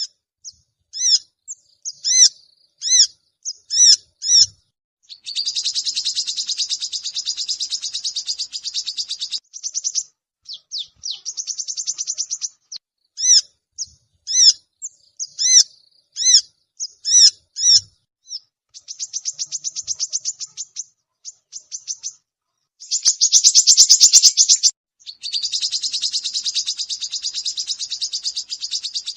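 Female brown-throated sunbird calling: sharp, high single chirps repeated about once or twice a second, broken by several long, fast trills lasting two to four seconds each.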